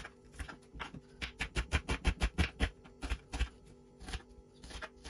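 Kitchen knife slicing an onion on a wooden cutting board: a run of crisp taps as the blade cuts through and strikes the board. The taps come several a second and are quickest and loudest between about one and three seconds in.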